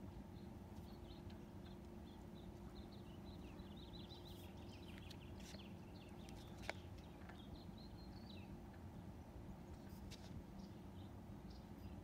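Faint steady low hum with a run of short high chirps through the middle and a single sharp click partway through.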